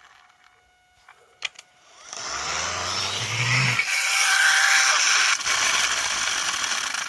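Toy pullback car's motor and gears whirring as the car runs, starting about two seconds in after a couple of faint clicks.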